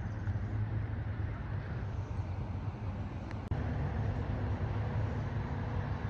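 A steady low engine rumble, with a brief dropout about halfway through.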